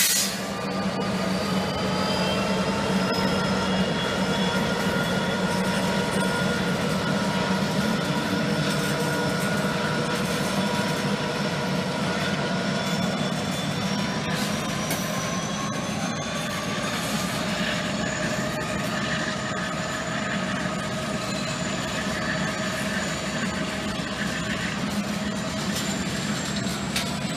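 Diesel-hauled freight train passing at close range: a steady rumble of locomotives and then tank cars rolling by. Over it run several high whining tones that climb slowly in pitch the whole time.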